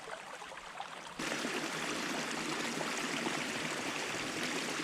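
Small creek's water running over rocks, a steady rushing hiss that abruptly gets louder about a second in and then holds steady.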